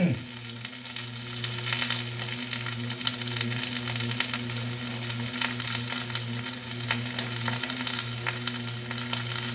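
Sliced red onions frying in oil in a pan, sizzling and crackling steadily. A steady low hum runs underneath.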